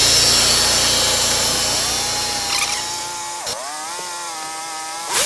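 Portable bandsaw sawmill running: a steady mechanical whine with a stack of tones and a low engine hum that fades after about three seconds. About three and a half seconds in, the pitch dips sharply and comes back up.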